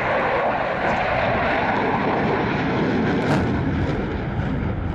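Loud jet roar of a twin-engine F/A-18 Hornet flying past, steady and then starting to fade near the end.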